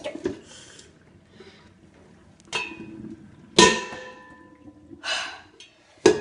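Two metallic clanks about a second apart, each ringing briefly: a stainless-steel cooking pot being knocked and set down on the kitchen counter. The second clank is the louder.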